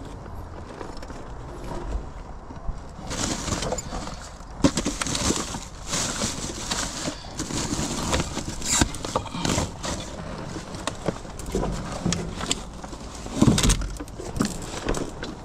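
Irregular rustling, clunks and knocks of discarded items being handled and moved about while rummaging through them.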